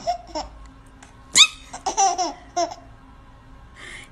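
A toddler laughing in short bouts, with a sharp high squeal of a laugh about a second and a half in.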